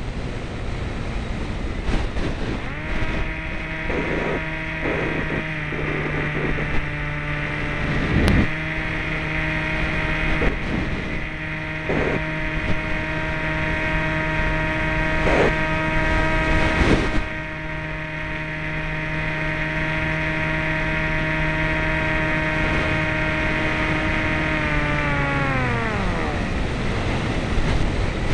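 Motor and propeller of an FPV model airplane heard through its onboard microphone, over wind rush. From about three seconds in it holds a steady whining tone with a few sharp clicks; near the end the pitch drops and the tone winds down and fades.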